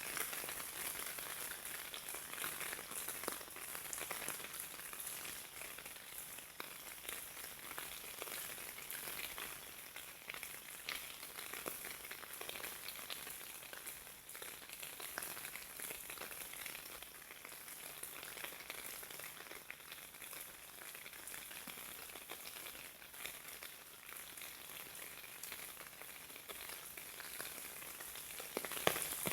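Rain falling steadily, a dense patter of many small drops.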